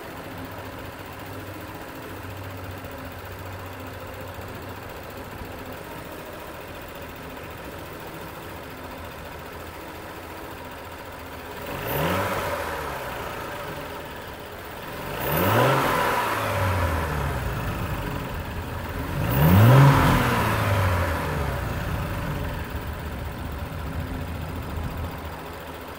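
2018 Audi S5's turbocharged 3.0-litre V6, heard from the open engine bay, idling steadily and then revved three times, about twelve, fifteen and nineteen seconds in. Each rev climbs in pitch and falls back. The third is the highest and loudest, and the engine settles back to idle near the end.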